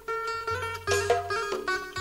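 Background music: a plucked-string melody over a low bass line.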